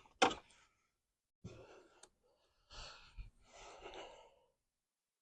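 A man's breathy exhales and sighs, three soft puffs of breath over a few seconds, with a couple of faint clicks.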